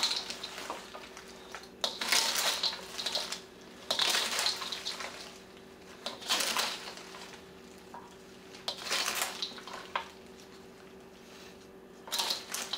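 Taco salad of Doritos chips, lettuce and ground beef tossed in a stainless steel mixing bowl with a metal utensil: a crunchy rustling swish with metal scraping the bowl, repeated roughly every two seconds.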